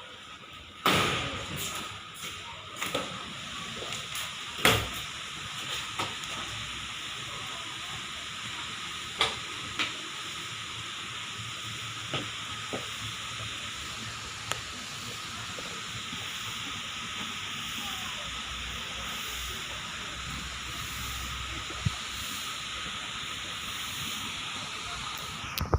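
Steady hissing noise with a faint constant tone in it, broken by a few sharp clicks and knocks in the first ten seconds and once more near the end.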